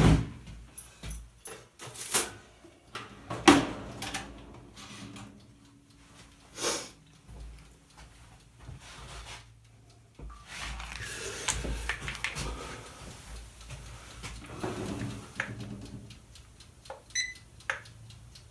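Workshop handling sounds: scattered knocks and clicks from objects being picked up and set down, a quiet pause, then a few seconds of faint steady rushing noise with small clicks.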